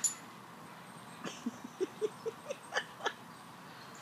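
Dog making a quick series of short, soft yips and grunts while playing, about eight of them over two seconds, starting about a second in.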